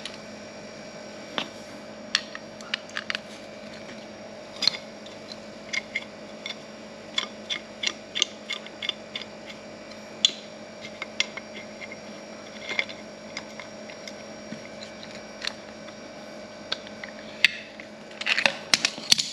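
Scattered small clicks and taps of a caravan mains water pressure regulator being handled and prised open by hand, with a louder clatter near the end, over a steady low hum.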